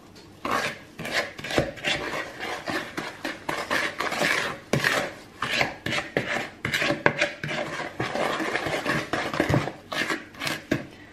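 Wooden spoon stirring thick brownie batter in a ceramic mixing bowl, with irregular scraping strokes and knocks against the bowl as flour is worked into the wet mixture.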